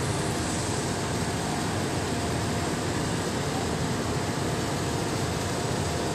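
Steady roar of wind and running offshore machinery, with a faint steady hum.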